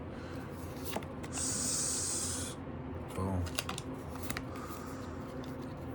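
A trading card slid into a plastic sleeve: a short, high hiss lasting just over a second, with light clicks and taps of cards being handled around it.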